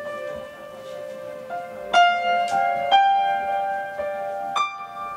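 Upright piano played live, with notes struck about two, three and four and a half seconds in and left to ring. Under them runs a held tone that slides slowly in pitch.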